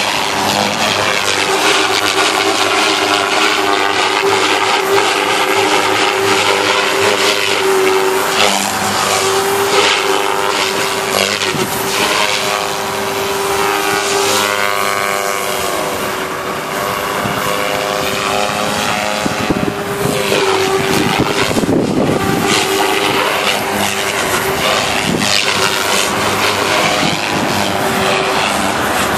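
Devil 380 electric radio-controlled helicopter flying aerobatics: the steady high hum of its spinning rotor and motor, swooping up and down in pitch a few times, around the middle and again about two-thirds of the way in.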